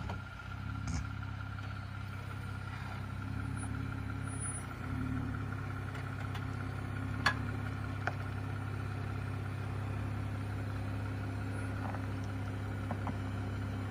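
Jeep Wrangler engine running low and steady while crawling slowly over rocks, with two brief sharp clicks about halfway through.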